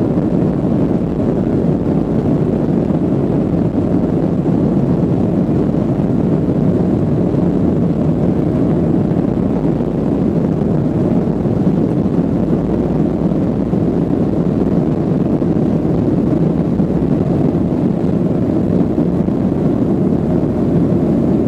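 Boeing 737-800 cabin noise while taxiing: the CFM56-7B engines running at taxi power, heard from inside the cabin over the wing as a steady low drone with no change in level.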